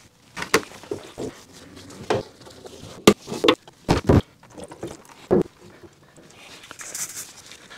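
Scattered knocks and clunks of a vintage electric motor's metal rotor and end-bell assembly being handled and set down in a plastic tub, with a soft hiss near the end.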